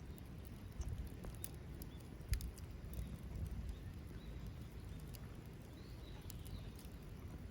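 Small wood fire crackling, with scattered sharp pops and ticks over a low rumble. A few faint high chirps come in the second half.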